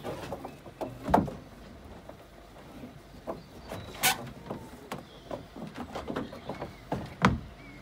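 Scattered knocks and clicks from tying a small boat off at a wooden pontoon: the mooring rope and hull being handled and boots on the boards. The sharpest clicks come about a second in, about four seconds in, and near the end.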